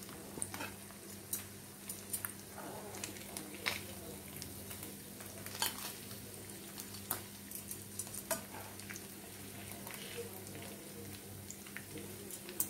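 Hot oil sizzling around murrel fish steaks shallow-frying in a nonstick pan, a steady hiss with many small sharp pops and crackles throughout.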